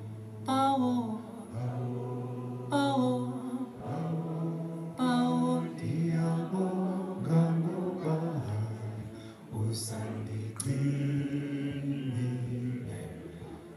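A male vocalist sings slow, drawn-out phrases live into a microphone over long sustained low accompaniment notes.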